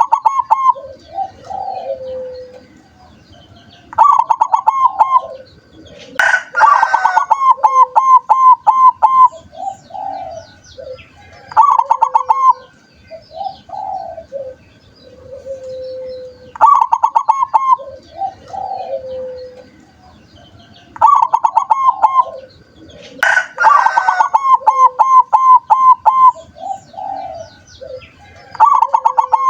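Zebra doves (perkutut) cooing in repeated phrases. Each phrase is a quick run of rapid notes followed by lower, softer coos, with a few seconds' pause between phrases.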